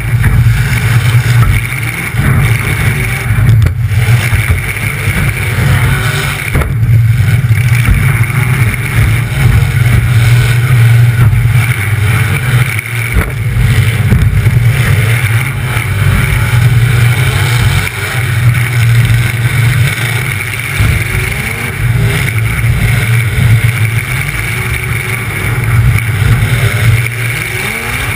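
Demolition derby car's engine running loud through open exhaust stacks poking up through the hood, the revs rising and easing off every few seconds as the car drives.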